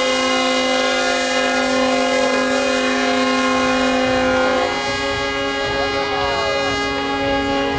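Ship's horn sounding one long, steady blast to mark a ship's launch down the slipway. Past halfway its pitch shifts slightly and a low rumble and crowd voices rise under it.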